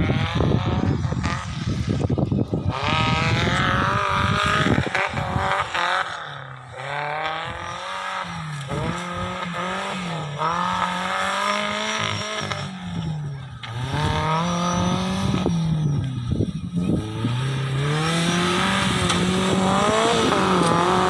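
Off-road vehicle's engine revving up and down over and over, its pitch rising and falling every second or two.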